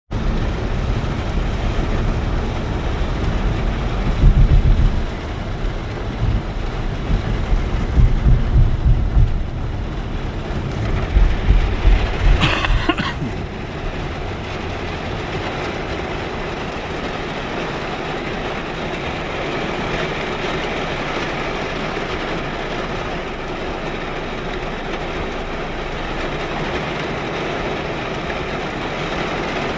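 Steady heavy rain, an even hiss. Deep low rumbles swell three times in the first half, then the rain runs on alone.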